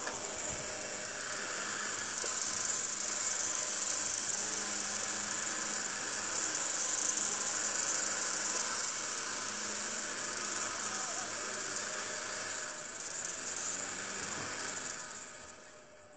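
Small electric table fan running, its blades giving a steady whirring hiss over a faint motor hum; the sound fades away near the end.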